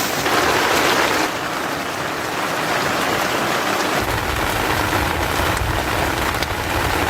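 Heavy rain falling, a dense steady hiss. About four seconds in, a low rumble joins it.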